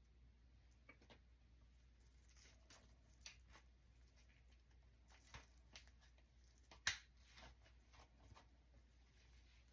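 Faint rustling and small clicks of hair being handled and wound onto velcro rollers, with one sharper click about seven seconds in.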